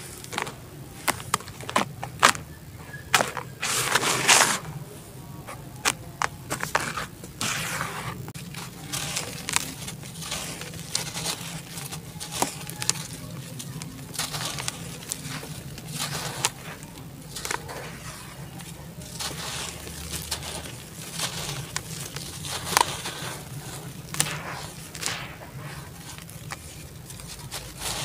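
Handfuls of dry, crumbly red dirt poured and crushed by hand in a basin: a gritty rush about four seconds in, then many short crackling, grainy crunches as dry clay lumps are crumbled and broken over water.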